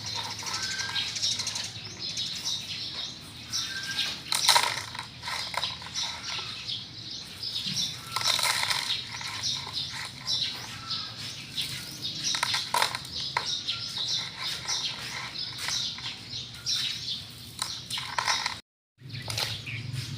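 Small birds chirping in short, repeated calls over a steady low hum, with a brief dropout near the end.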